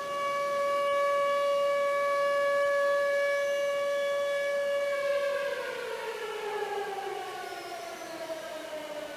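Warning siren sounding an emergency alert: it holds one steady wailing tone, then from about five seconds in its pitch slowly falls.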